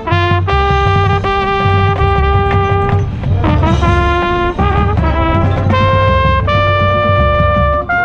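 Trumpet played right at the microphone in a marching band show: a long held note, then shorter notes stepping upward into held notes near the end, with the rest of the band sounding lower underneath.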